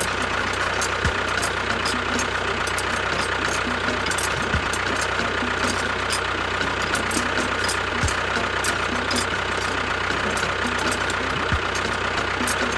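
Small electric motor of a DIY model tractor running steadily with a thin whine and rapid fine ticking, plus a dull thump about every three and a half seconds.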